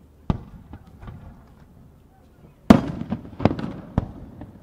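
Fireworks going off: a single sharp bang about a third of a second in, then a cluster of four louder bangs from just under three seconds in, each with an echoing tail.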